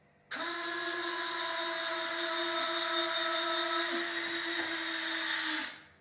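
Motor of an F-104 landing-gear mechanism running with a steady mechanical whine over a hiss, starting abruptly just after the start and cutting off about five and a half seconds later.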